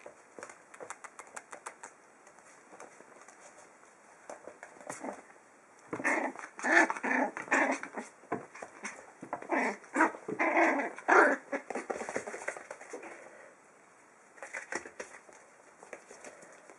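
Five-week-old puppies yapping and yelping at each other in play: a run of short, loud, high calls starting about six seconds in and lasting some seven seconds, with a few more near the end. Before that, only light clicks and rustling of bedding.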